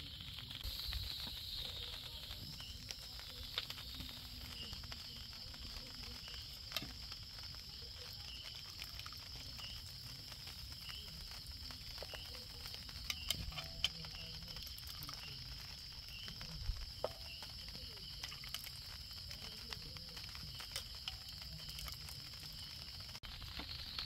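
Night insects chirping: a steady high drone with a short chirp repeating over and over. Over it, a metal ladle and spoon clink against a steel cooking pot and plates while food is served, the sharpest clinks about thirteen seconds in.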